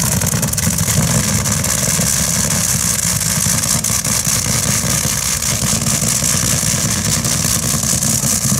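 Big V12 engine of a modified tractor-pulling machine running steadily at low revs, a fast, even low beat with a steady high hiss above it.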